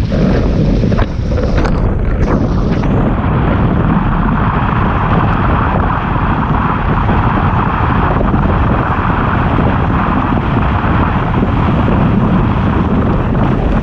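Windsurf board (Starboard Isonic 117) planing at speed over choppy water: a steady rushing hiss of water and spray under the hull, over a heavy rumble of wind buffeting the microphone. A few sharp slaps come in the first three seconds.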